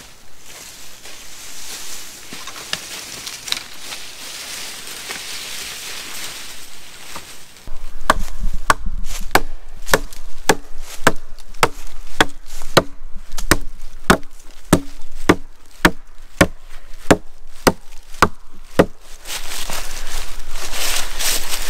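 Wood being chopped by hand: a regular run of sharp blows, about two a second, starting some eight seconds in and stopping a couple of seconds before the end.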